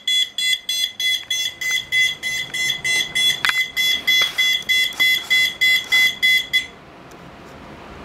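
STI mini controller alarm sounder, set off by a weather radio's external-alert relay, beeping rapidly in a high two-tone at about three to four pulses a second, then cutting off suddenly near the end as its timed sounding period runs out.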